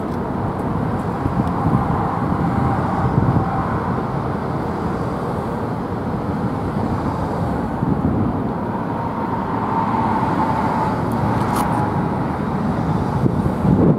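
Steady rumble of passing road traffic, swelling and easing gently, with a faint thin tone drifting in and out.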